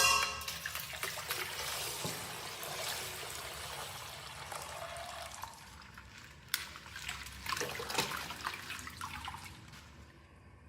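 Plastic toy packaging rustling and crinkling as a mystery toy packet is handled and opened, with a few sharp clicks and crackles in the second half.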